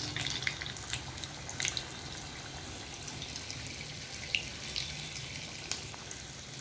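Medu vada (urad dal fritters) deep-frying in hot oil: a steady sizzle with scattered small crackles.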